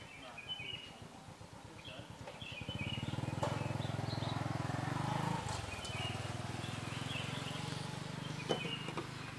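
Small birds chirping on and off outdoors. A low steady hum comes in about three seconds in, breaks off briefly and then runs on, with a couple of sharp clicks.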